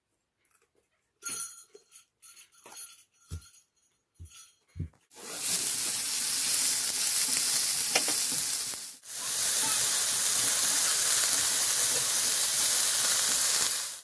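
Diced potatoes and onions sizzling loudly as they fry in a cast-iron skillet, being stirred. The sizzle starts about five seconds in and breaks off for a moment near the middle, after a few faint scattered clicks.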